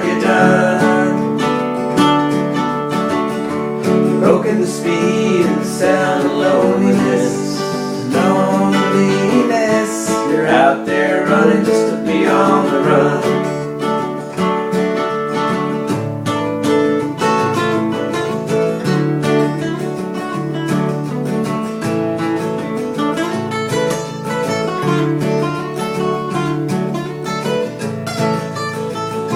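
Acoustic guitar strumming a country-folk song, with a voice singing over it for roughly the first half; after that the guitar plays on alone.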